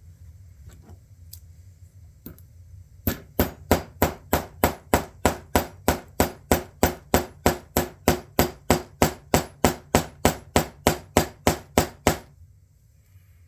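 A hammer tapping to set a long-post rivet in leather: a long, even run of light taps, about three a second, starting about three seconds in and stopping after roughly nine seconds. Many gentle taps are used because the long post tends to shift one way or the other.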